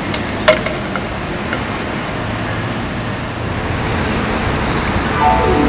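Steady street noise of road traffic, broken by two sharp clicks about half a second in. Near the end, music comes in with a descending run of notes.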